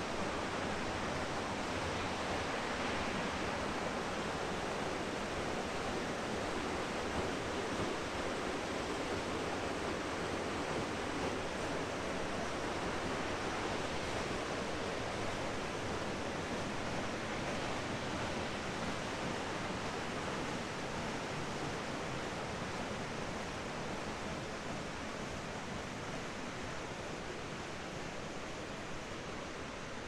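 Pistyll Rhaeadr waterfall and the river cascades below it: a steady rush of falling water, fading slightly near the end.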